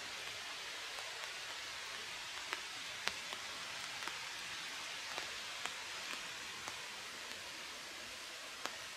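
Small open wood fire crackling: irregular sharp pops, the loudest about three seconds in, over a steady hiss.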